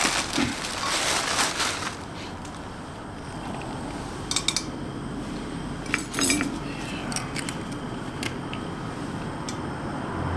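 A plastic bag rustling for the first couple of seconds, then a few sharp metal clinks and knocks as a frying pan is set onto a small canister camp stove, over a steady hiss.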